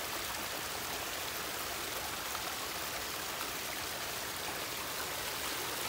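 Water of a backyard pondless waterfall splashing and trickling over rocks, a steady even rush.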